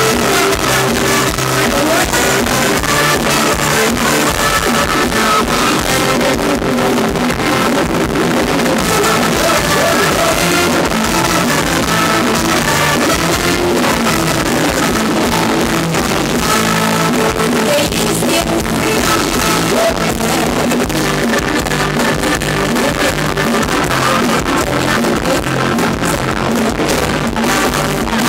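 Loud live Thai ramwong dance music from a band over stage loudspeakers, with a singer's voice and electric guitar.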